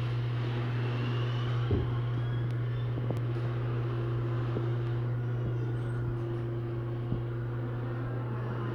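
Garage door opener motor running steadily as the door travels, a constant low hum with a few faint clicks.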